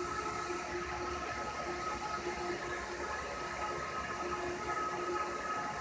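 A 3/8-inch cordless drill runs steadily, powering the drive wheels of an air-blown fiber blowing head that push fiber into the tube. It gives a steady, slightly wavering whine over a constant hiss.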